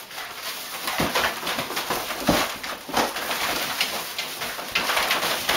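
A dog going after balloons: irregular scuffling and rubbing noises, with dull thumps about a second and two seconds in.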